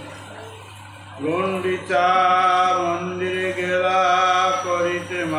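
A man's solo voice chanting a devotional verse in long, held notes, coming in with an upward glide about a second in after a short pause. A steady low hum runs underneath.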